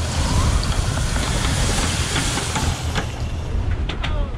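Wind buffeting the microphone over the rush of water along the hulls of a sailing catamaran under way: a steady hiss with a low rumble beneath, and a few sharp clicks near the end.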